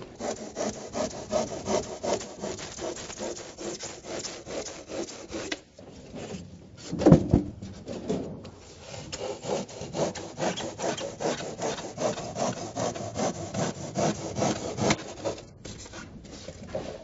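Handsaw cutting through an expanded-polystyrene insulated concrete form block, in quick back-and-forth strokes about two to three a second. A short pause and one louder thump come about seven seconds in, then the sawing carries on.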